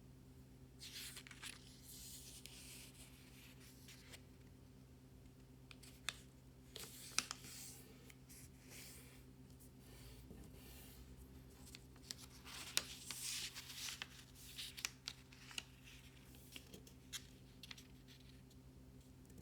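Faint rustling and creasing of a square of origami paper being folded by hand, in irregular bursts with a few sharp crisp clicks, over a steady low hum.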